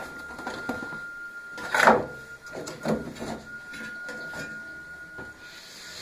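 Plastic tub halves of an LG F1056MD washing machine being shifted apart by hand, exposing the stainless drum. Irregular scrapes and knocks of plastic and metal, the loudest scrape about two seconds in.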